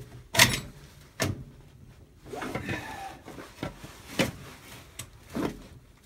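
Sharp metal clicks and clunks as a tractor PTO shaft's yoke is worked and pushed onto the PTO stub, about five knocks spread apart, with a longer scraping rub about halfway through.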